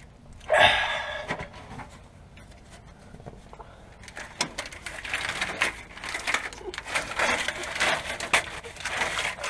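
Work noise under a truck while a plow wiring harness is handled: a loud short scrape about half a second in, then a steady run of small clicks, knocks and rustles.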